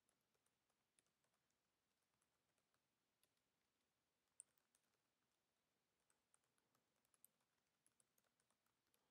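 Near silence, with faint scattered clicks of typing on a computer keyboard. Two clicks, about four seconds in and near the end, stand out a little.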